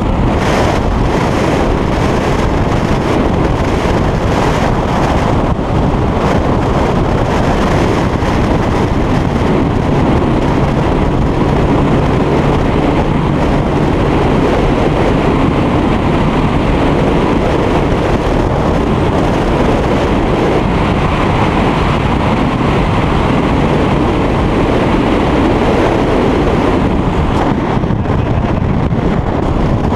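A 22-foot Liberator speedboat's 400 hp outboard running at speed across choppy water, heard under a steady rush of wind on the microphone.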